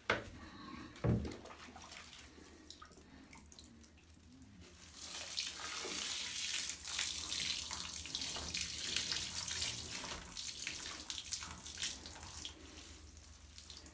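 Bath water poured from a plastic scoop over a puppy in a foamy tub, splashing steadily from about five seconds in and thinning to a lighter stream near the end. Two brief loud sounds come in the first second or so.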